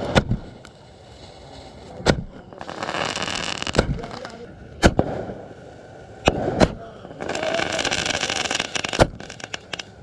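Firecrackers going off: sharp bangs every second or two, with two stretches of hissing crackle lasting about a second each.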